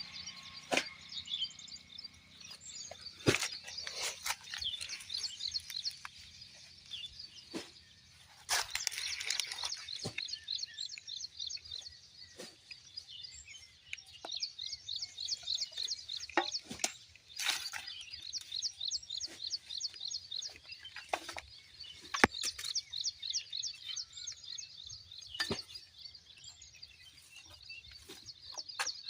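Birds chirping in fast repeated trills, with scattered sharp clicks and knocks.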